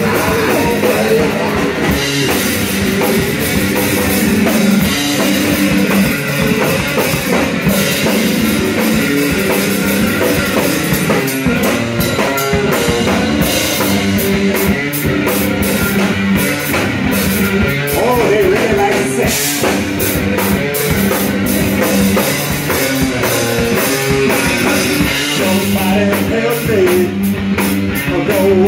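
Punk rock band playing live and loud: electric bass and drum kit driving a steady, fast rock beat.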